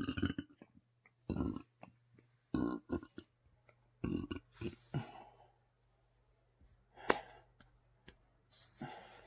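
Deep burps from an overstuffed stomach: a series of short belches with pauses between them, and a sharp click about seven seconds in.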